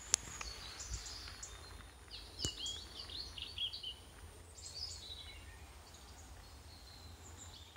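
A small bird singing a run of short, quick chirping notes in the trees, fading to a few fainter notes after about four seconds. Two sharp clicks, one right at the start and one about two and a half seconds in.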